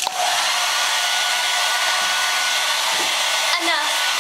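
Handheld hair dryer blowing steadily: a loud, even rush of air with a faint steady whine in it.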